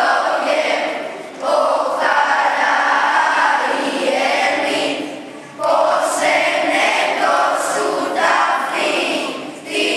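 Children's choir singing a hymn of the Orthodox Good Friday Epitaphios service, in long phrases with short breaths between them, about a second and a half in and again near five and a half seconds.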